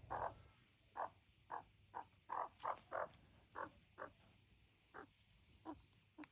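Australian magpie giving a run of short, croaky calls, about a dozen at uneven intervals of roughly half a second.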